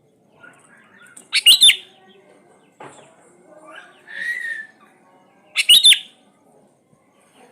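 Sooty-headed bulbul (kutilang) singing: two loud, short warbled phrases about four seconds apart, with softer chirps and calls between them.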